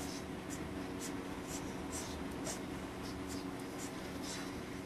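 Felt-tip marker scratching across paper in short repeated strokes, about two a second, over a steady low hum.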